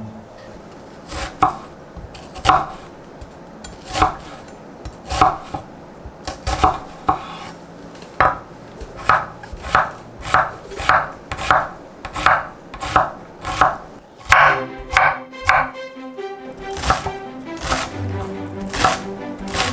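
Kitchen knife chopping vegetables on a cutting board in single strokes, about one a second at first, then quickening to a steadier rhythm of strikes.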